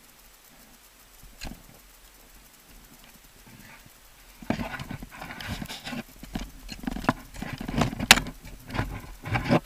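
Ice axe and crampon placements into snow-covered ice heard from a helmet camera: a single knock, then from about four and a half seconds in a busy run of dull, irregular knocks and scrapes, with one sharp crack near the end.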